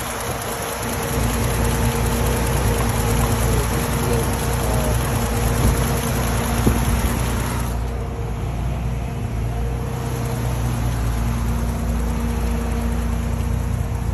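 BMW M20 straight-six with Dbilas Dynamic individual throttle bodies and a Flowmaster exhaust, idling steadily. A hiss over the engine note drops away about eight seconds in.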